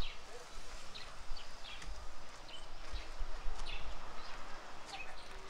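Outdoor ambience: scattered short bird chirps over a low, steady rumble.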